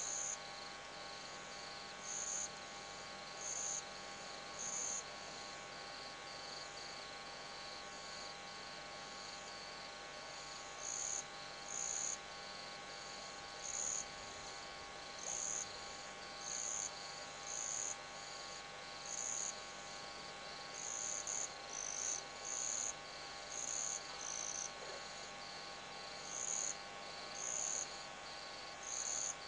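Night insects, crickets by the sound, calling at a waterhole: a steady high trill with short, louder chirps above it that repeat irregularly, often about once a second, pausing for several seconds in the first third.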